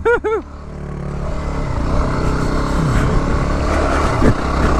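Yamaha WR250R dual-sport motorcycle's 250 cc single-cylinder engine running under throttle as the bike climbs a muddy trail. It grows gradually louder, with the revs dipping and picking back up about midway.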